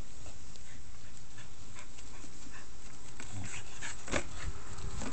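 Welsh Corgi panting, a string of short quick breaths.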